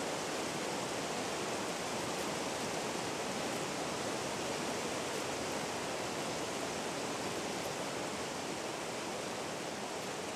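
A fast-flowing stream rushing over rocks: a steady, even rush of water.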